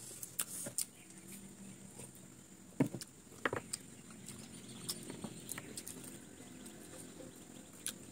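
Close-up eating sounds: noodles slurped and chewed, with scattered sharp clicks and taps of metal forks, the loudest two about three seconds in, over a faint steady low hum.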